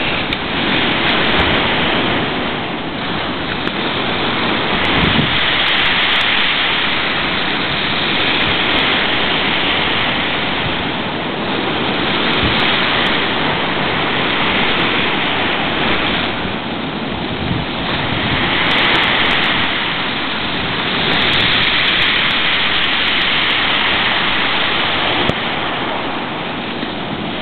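Heavy surf and gale-force wind in a storm: a loud, dense rush of breaking waves and wind noise that swells and eases every few seconds.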